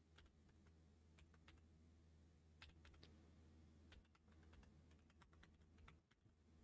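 Faint typing on a computer keyboard: irregular single keystrokes and short runs of keys.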